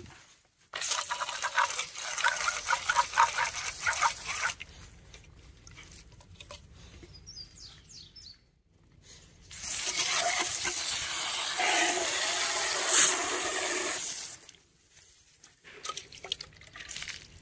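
Garden hose with a pistol-grip spray nozzle spraying water into a small plastic chick waterer jar to rinse it out, in two bursts of about four seconds each, one early and one in the middle.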